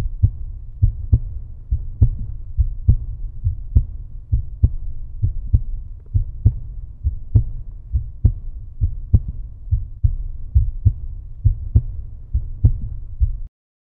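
A low, regular thudding pulse like a heartbeat sound effect, about two beats a second, that cuts off suddenly near the end.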